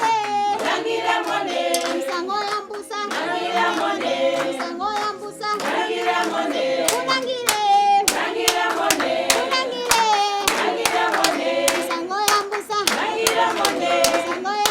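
A group of voices singing together, accompanied by hand clapping.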